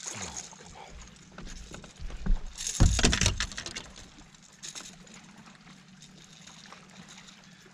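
A loud splashing, thumping scuffle between about two and three and a half seconds in as a small bass is lifted from the water onto the boat deck. It is followed by faint clicks and rattles while the jerkbait is unhooked from the fish.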